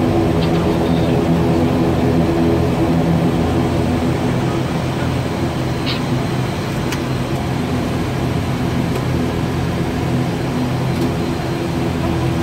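The ATR 72-600's twin turboprop engines and propellers, heard from the cockpit as a steady drone with several steady tones, while the aircraft slows on the runway after landing. The drone eases slightly about halfway through.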